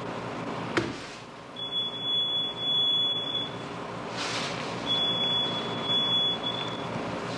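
A steady high-pitched electronic beep sounds twice, each time for nearly two seconds, after a sharp click about a second in.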